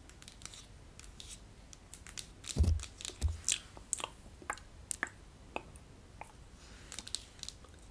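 Close-miked ASMR trigger sounds: soft, scattered clicks and crackles, with two low thumps about two and a half and three and a quarter seconds in.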